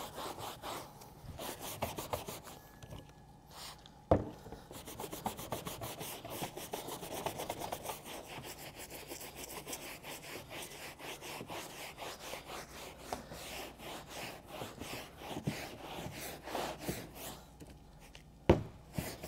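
A hand brush scrubbing a carpeted car floor mat in rapid back-and-forth strokes, working a sprayed-on carpet cleaner into the fibres. A sharp knock about four seconds in and another near the end.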